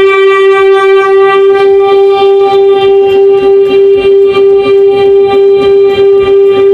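Diesel locomotive's air horn sounding one long, loud, steady blast on a single pitch.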